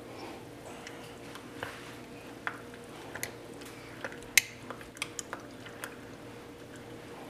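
A metal spoon stirring soaked oats and milk in a glass jar, clinking against the glass about ten times at an uneven pace, with one sharper clink a little past the middle.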